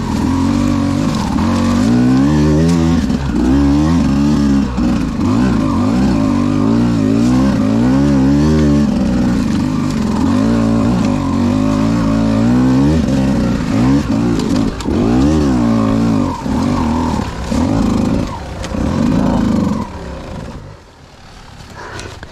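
Beta 200RR two-stroke dirt bike engine revved up and down again and again as it climbs through technical trail, its pitch rising and falling with each throttle burst. It drops away sharply near the end.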